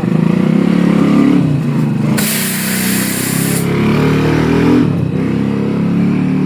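An engine or motor running loudly, its pitch wavering up and down, with a burst of loud hissing air for over a second in the middle.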